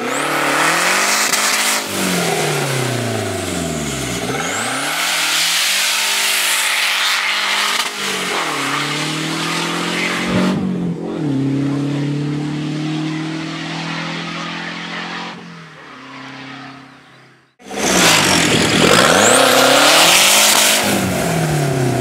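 Fiat 127's turbocharged 2.0 16-valve engine revving hard, its pitch swinging down and up several times. It then holds a steady, slowly rising note that fades as the car pulls away down the strip, and loud revving cuts back in suddenly near the end.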